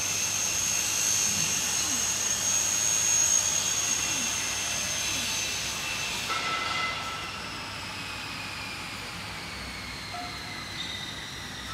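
Laser cutting machine's fans and motors running: a steady whoosh with a thin high whine, which gets quieter and changes pitch about six seconds in.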